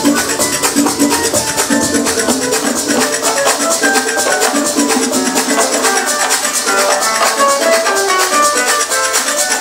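House music played loud over a club sound system, with fast, even shaker-like percussion and short plucked melodic notes. The bass thins out about three seconds in.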